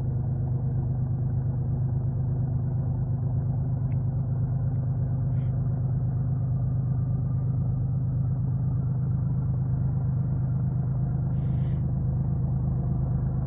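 Steady low diesel engine rumble at an even level, with a few faint short high sounds over it.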